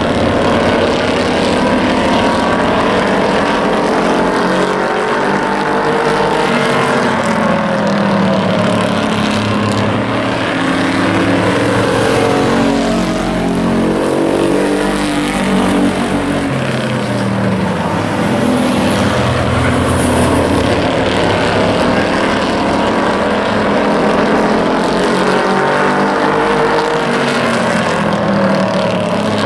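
Engines of several hobby-class racing pickup trucks running hard together around an oval track, their pitches rising and falling and crossing as the pack laps.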